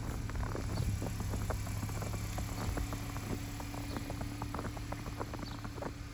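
Street ambience in snow: a steady low hum of vehicle engines, with a steady tone joining about three seconds in, over dense small clicks and crunches of footsteps in snow.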